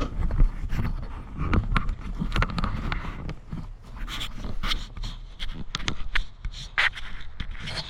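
Chainsaw's recoil starter cord yanked in short, irregular pulls, a rasping stroke with each pull, the engine not yet catching: a cold start with the choke on after priming.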